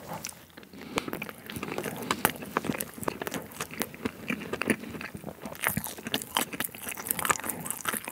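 A bite into a slice of Victoria cake, a pound-cake sponge with berry jam, then chewing it, heard close up: soft, wet mouth sounds with many small sharp clicks.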